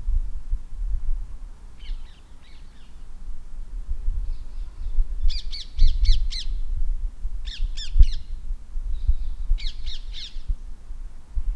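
A bird calling in four quick bursts of short, harsh, rapidly repeated calls. The loudest burst comes about five to six seconds in. A low rumble with occasional bumps runs underneath.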